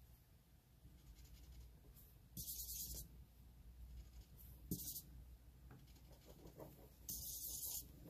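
Alcohol ink marker nib stroking across glossy photo paper: three brief scratchy strokes, about two and a half seconds in, near five seconds and near the end.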